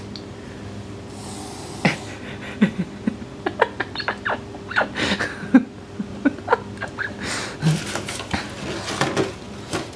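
Irregular knocks, taps and scrapes of a cat's paws batting at an ice cube inside an empty cardboard 12-pack soda box, the cardboard rattling with each strike. The hits come in quick uneven clusters, starting about two seconds in, over a faint steady hum.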